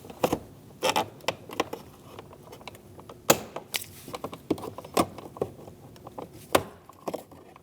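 A metal pick tool working under the plastic window switch bezel in a Chevrolet Malibu's door trim: irregular light clicks and scrapes of plastic, with a few sharper snaps.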